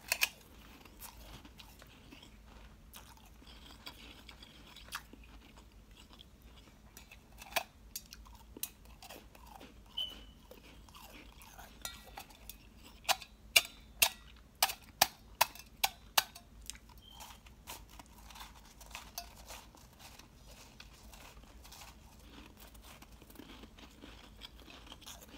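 Soft, powdery ice being bitten and chewed: scattered sharp crunches, with a quick run of crunches about two a second around the middle.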